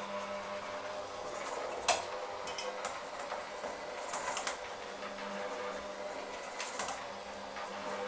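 Electric hand mixer running steadily, its beaters churning a mixture in a stainless steel bowl and knocking against the bowl now and then, with one sharp clack about two seconds in.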